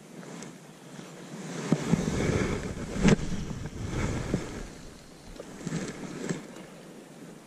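Handling noise on the camera: a gloved hand and clothing rubbing and knocking against it, loudest from about two to four and a half seconds in, with a few sharp clicks, then a few lighter clicks around six seconds in.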